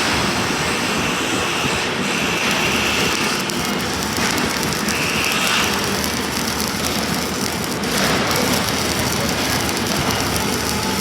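Self-shielded flux-cored arc welding with Lincoln Innershield NR305 5/64-inch wire: a steady, dense crackle from the arc.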